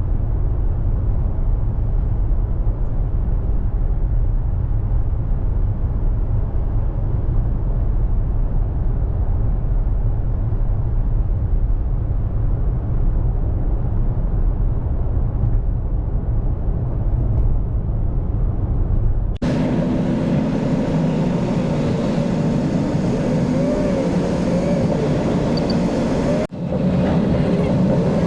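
Steady low road rumble inside a moving car's cabin at highway speed. About two-thirds of the way through it cuts suddenly to a different, brighter sound with wavering tones, which drops out briefly near the end.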